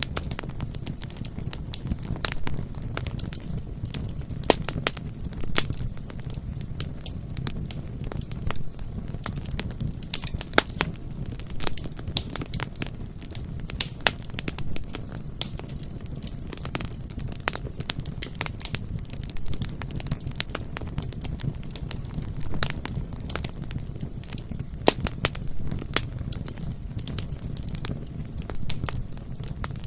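Wood fire burning: a steady low rumble of flames with frequent sharp, irregular crackles and pops.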